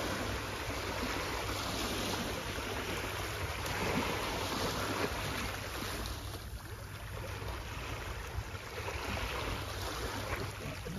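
Small sea waves washing and breaking over a rocky, weed-covered shoreline, the wash swelling and easing, with wind buffeting the microphone.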